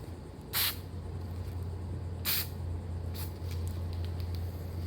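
Aerosol spray paint can giving short bursts of hissing spray, two of them about a second and a half apart, over a steady low hum.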